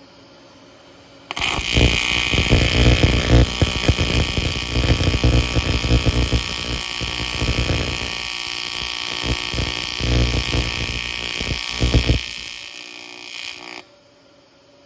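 AC TIG welding arc on cast aluminum and 6061, run at 60 Hz AC frequency with a helium-argon shielding mix: a steady buzz with crackling that strikes about a second in. It goes quieter for the last second or so and then cuts off as the weld ends.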